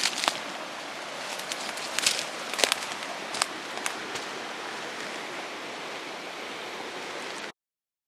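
Steady rushing of a rocky mountain river, with crunching footsteps on dry leaf litter and twigs in the first few seconds. The sound cuts off suddenly near the end.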